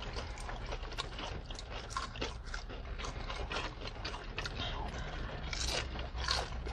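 Close-up chewing and crunching of fried food, onion rings, fries and a burger, with many short crackles and mouth clicks, over a steady low hum.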